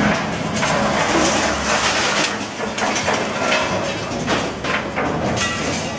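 Wheel loader tipping a bucketful of debris into a steel roll-off container: a run of irregular crashes and clatters as the rubble hits the metal bin, over the steady low running of the loader's diesel engine.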